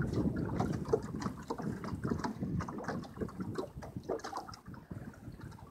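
Fishing net being hauled out of the water over the side of a boat: water dripping and splashing off the mesh in quick, irregular patters, growing quieter near the end.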